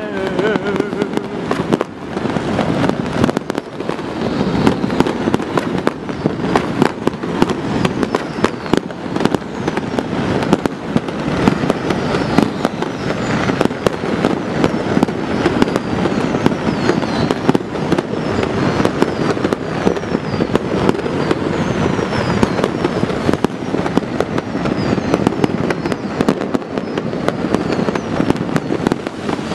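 Many fireworks and firecrackers going off at once across a city, a dense, continuous crackle of bangs with no pause, and now and then a thin falling whistle.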